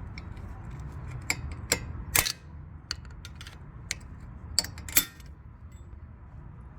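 Flathead screwdriver working against the metal clip on a brake caliper to pry it off: a string of separate sharp metal clicks and scrapes, the loudest about two seconds in and again near five seconds.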